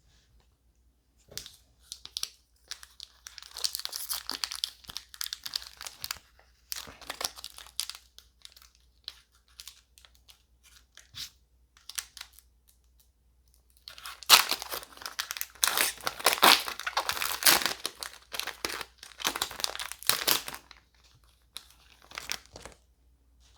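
A trading-card booster pack wrapper being torn open and crinkled: scattered rustling in the first several seconds, then a louder, denser stretch of crinkling in the middle.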